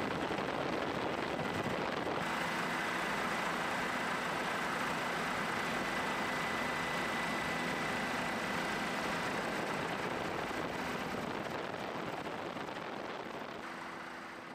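Steady helicopter engine and rotor noise heard from aboard, with a thin steady whine. It changes abruptly about two seconds in and fades out near the end.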